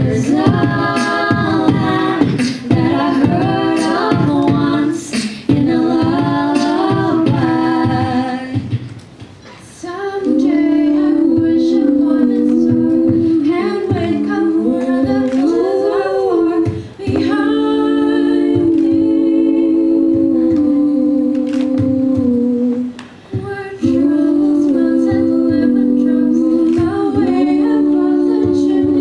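A cappella group of four, three women and a man, singing in close harmony into microphones. For the first eight seconds or so a regular beat of sharp clicks runs under the voices. After a short dip near nine seconds the voices move into long held chords.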